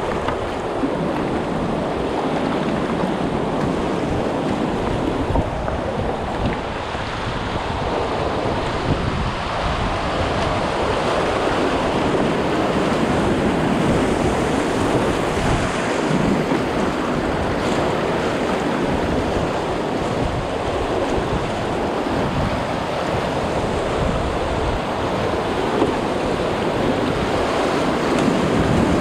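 Whitewater river rapids: a steady, loud rush of churning water around a kayak, heard from right at the water's surface.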